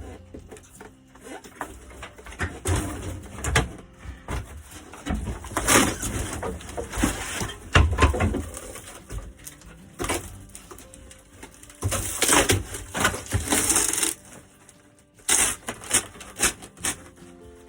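Damaged RV roof being torn out by hand: irregular crunching, cracking and tearing with knocks as pieces break away, in bursts with short pauses.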